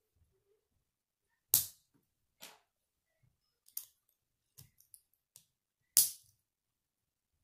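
K'nex plastic rods and connectors being snapped together by hand: a string of sharp plastic clicks, with two loud snaps, one about a second and a half in and one near the end.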